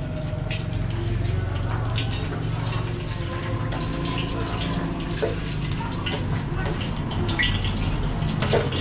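Wok frying over a gas burner: a steady low burner rumble under a watery frying sizzle, with occasional light clinks of the steel ladle against the wok.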